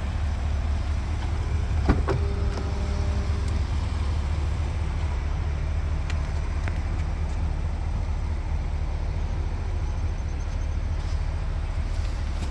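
Cadillac Escalade's 6.2-litre V8 idling, a steady low rumble. A sharp click comes about two seconds in, followed by a short steady tone, and lighter clicks come around six seconds in.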